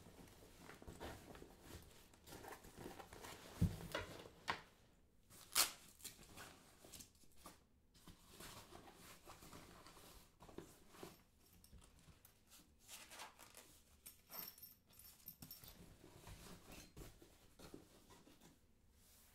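Faint rustling and handling noises of things being moved about, with a dull thump about three and a half seconds in and a sharp click about two seconds later.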